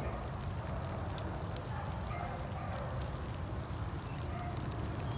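Footsteps of a person and a dog on a leash on a muddy, leaf-covered path, scattered soft clicks over a steady low rumble, with a few faint high chirps near the end.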